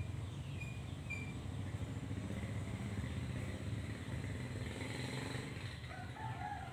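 A chicken crowing faintly near the end, over a steady low rumble, with a few short bird chirps in the first second or so.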